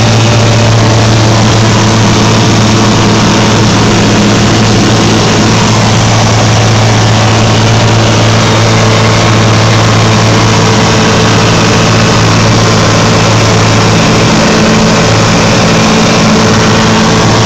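Light aircraft's piston engine and propeller running steadily and loud, a deep even hum over a broad rushing noise; the hum wavers briefly a little before the end.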